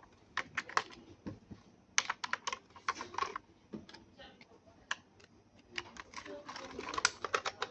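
Irregular clusters of light clicks and taps from small plastic parts being handled, with short quiet gaps between them.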